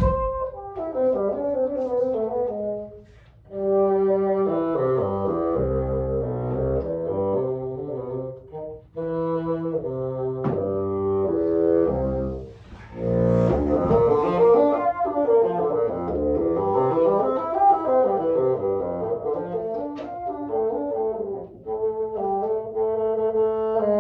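Bassoon playing a solo melody of held notes that reaches down into its low register, with a few brief breaks between phrases.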